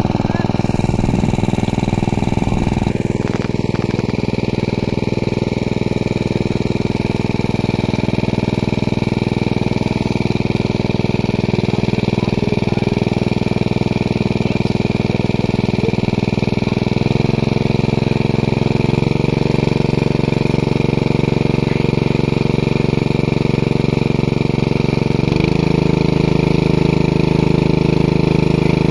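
Small engine running steadily, most likely a pump engine drawing water out of the pond through its hose. Its pitch shifts a few times, about two-thirds of the way through and again near the end.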